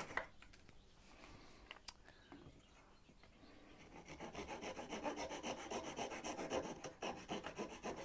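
Flat flush-cut hand saw cutting through a protruding wooden axle peg flush with the face of a wooden wheel, in rapid back-and-forth strokes. The strokes are faint at first and grow louder and steadier from about halfway, stopping shortly before the end.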